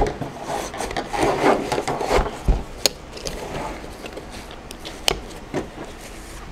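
A folding military trenching tool is pushed into its fabric carrying pouch and handled on a table: scraping and rubbing of fabric and metal for the first two seconds, a dull thud about halfway in, then a few sharp clicks as the pouch is closed and moved.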